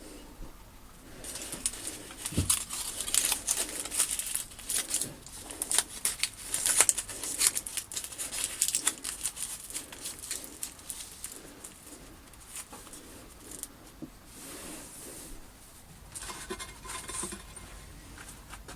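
Sand being scooped and poured in around a tin can, an irregular gritty scraping and pattering, busiest over the first half and tapering off into scattered scrapes.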